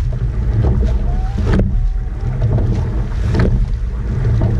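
Coxed rowing eight under way, heard from a camera on the boat: a steady rumble of wind on the microphone and water along the hull. A sharp knock comes about every two seconds as the oars turn in their oarlocks on each stroke.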